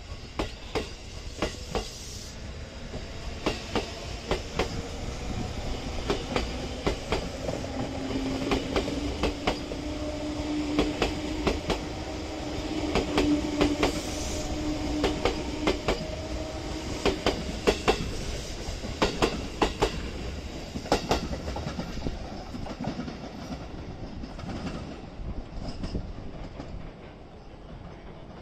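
A JR 251-series Super View Odoriko electric multiple-unit limited express pulling out and gathering speed. Its wheels click over the rail joints in repeated close pairs, and a motor tone rises in pitch as it accelerates. The sound grows quieter near the end.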